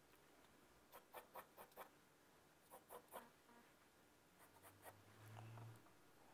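Faint graphite pencil strokes scratching on drawing paper, in quick clusters of three or four short strokes, going over the outlines of a geometric sketch to darken them. A brief low hum a little after five seconds.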